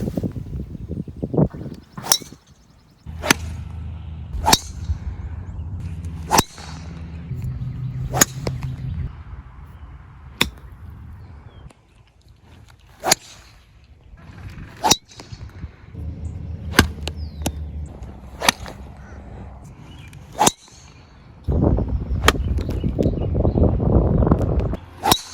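A series of sharp, crisp golf-ball strikes, about a dozen, one every one to three seconds, some with a short metallic ring, over patches of low rumble.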